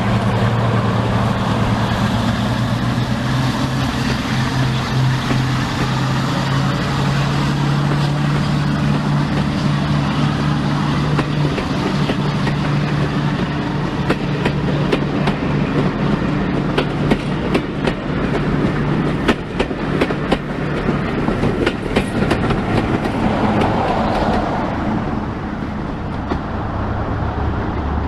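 A diesel locomotive running with a steady low engine note. From about halfway, a run of sharp clicks comes in, like wheels over rail joints, and fades near the end.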